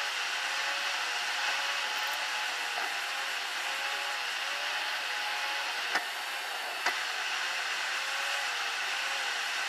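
Steady road and wind noise inside a car cruising on an expressway, with a faint hum under it that wavers about once a second. Two sharp clicks come about a second apart near the middle.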